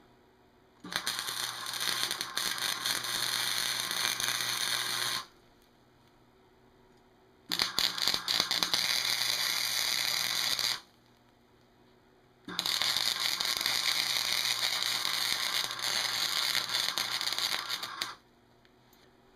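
Electric arc welder laying three separate welds of a few seconds each on an office chair's metal base. The arc makes a steady crackling sizzle that starts and cuts off abruptly, with short pauses between welds.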